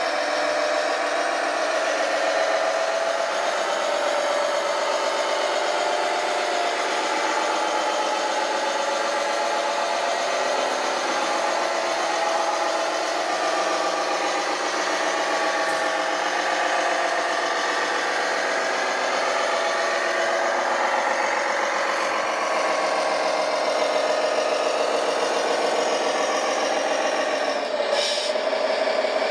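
Radio-controlled scale construction machines running: a steady engine-like hum, with rattling. A brief hiss sounds near the end.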